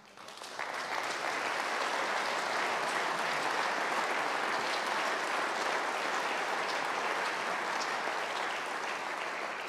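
Audience applause: many people clapping, building up over the first second and then holding steady.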